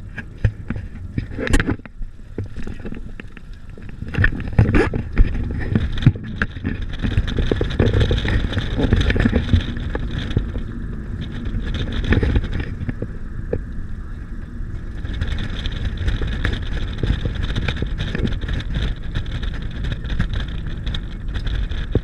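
Vehicle cabin noise while driving: a steady low road and engine rumble with scattered short knocks and rattles.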